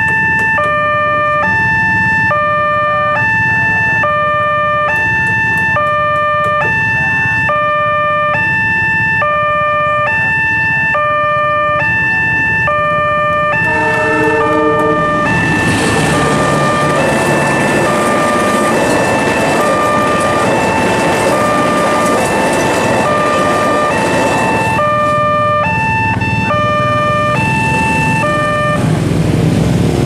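Railway level-crossing warning siren: a tinny electronic alarm alternating rapidly between two notes over a steady high tone. About halfway through a passing train's rumble mixes in under the alarm, which cuts off shortly before the end.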